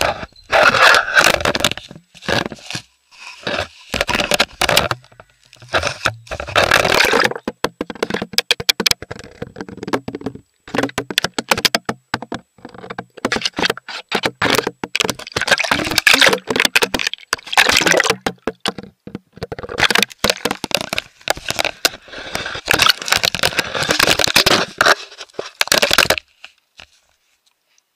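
Handling noise on a small camera being pawed, mouthed and tumbled about by a wild cat: loud runs of crackling, knocking and scraping against the microphone, in bursts with short gaps, that stop suddenly near the end.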